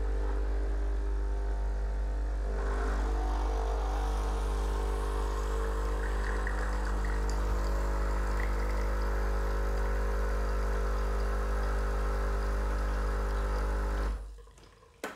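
Sage (Breville) Bambino Plus espresso machine's vibratory pump running steadily while pulling a shot through the dual wall basket, the sound getting fuller about two and a half seconds in. It stops shortly before the end, when the shot button is pressed again.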